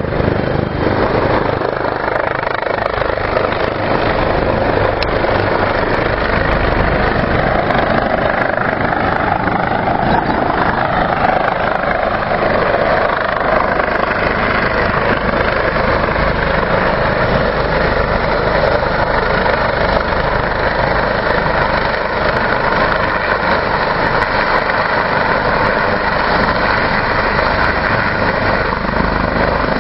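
Helicopter turbine engines and rotor blades running loud and steady as a helicopter flies overhead and comes down low near a second helicopter on the ground.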